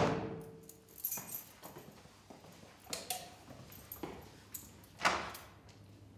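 A loud thud right at the start that rings out slowly, then a low steady hum with a few separate sharp knocks.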